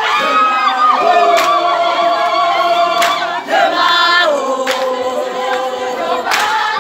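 A crowd of young people singing together in chorus, many voices holding long notes, with a sharp beat such as a clap or stamp about every second and a half.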